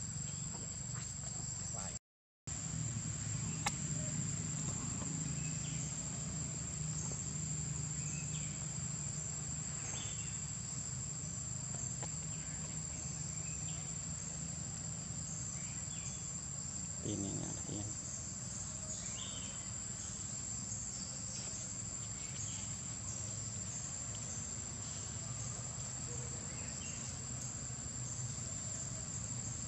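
A steady, high-pitched insect drone over a low background rumble. The sound cuts out briefly about two seconds in.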